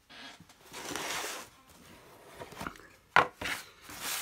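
Cardboard model-locomotive boxes handled on a work table. There is a rustling scrape about a second in as a box is slid and opened, then a sharp knock a little after three seconds, the loudest sound, followed by a smaller knock.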